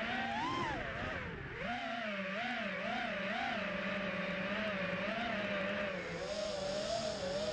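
FPV racing quadcopter's brushless motors and propellers whining as it flies, the pitch rising and falling over and over with the throttle, picked up by the onboard camera. A brighter hiss joins about six seconds in.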